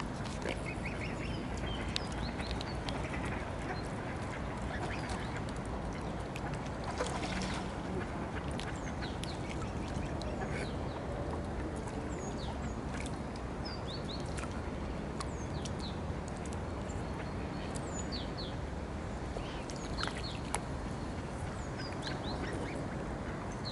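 Ducks quacking on a pond, with short high calls scattered through over a steady background hiss.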